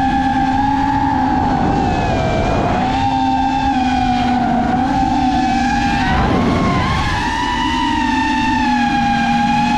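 FPV quadcopter's motors and propellers whining steadily, the pitch dipping and rising twice in the middle, over a rumble of wind.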